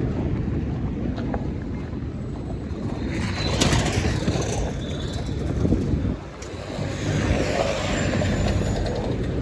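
Road traffic: vehicles passing, the nearest about three to four seconds in, over a steady low rumble.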